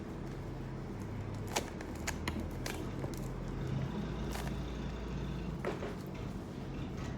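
A Rubik's cube being turned by hand: a few irregular sharp plastic clicks as its layers are twisted, over a low steady hum.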